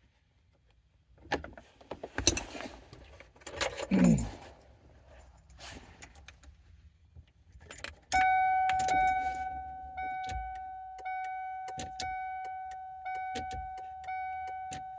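Keys jangling and clattering at a car's ignition, with a few knocks. About eight seconds in, the car's warning chime comes on: a steady tone that swells again about once a second.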